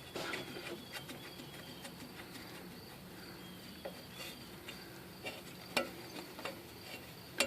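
Faint, scattered small clicks and taps as tools and drum-brake parts are handled, over a faint steady insect chirring.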